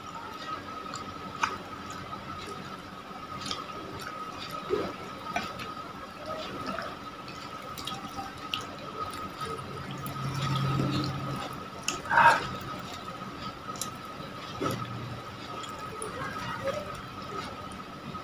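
Wet eating sounds: fingers pulling apart slimy raw fish flesh and a mouth chewing it, with scattered small wet clicks and smacks and one louder smack about twelve seconds in. A steady thin high tone runs underneath.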